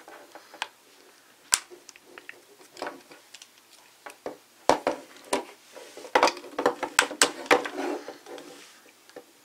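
Irregular clicks and knocks of hard plastic as the straps of a toy Sentai belt buckle are handled and adjusted, growing busier about halfway through.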